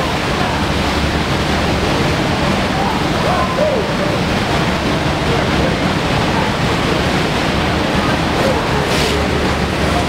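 Fast, turbulent river water rushing and churning through rapids: a steady, loud wash of whitewater noise.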